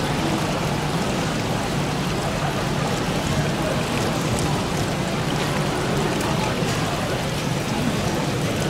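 Steady background hubbub of a busy exhibition hall: an even wash of crowd noise with no single sound standing out.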